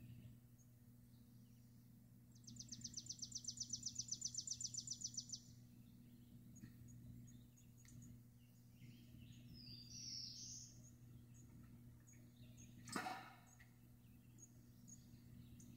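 Quiet outdoor background with a steady low hum. A bird gives a rapid, even high trill about two seconds in that lasts about three seconds, and short high chirps follow near ten seconds. A brief sharp noise, the loudest moment, comes about thirteen seconds in.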